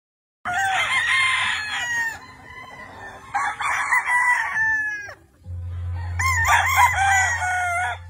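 Gamefowl roosters crowing, three crows in turn, each a drawn-out call that falls in pitch at the end. A steady low hum comes in underneath about halfway through.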